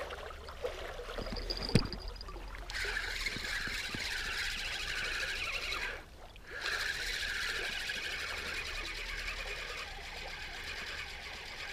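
Spinning reel on a feeder rod being cranked to wind in the line after a bite: a steady whir that swells about twice a second with the turns of the handle, stopping for a moment about six seconds in, then going on. A sharp click comes just before the cranking starts.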